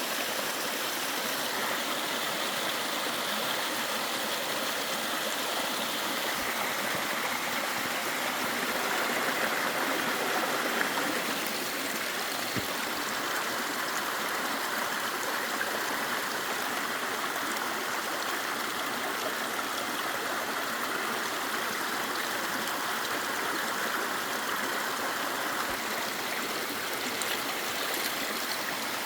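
Mountain valley stream flowing after rain, a steady rush of water.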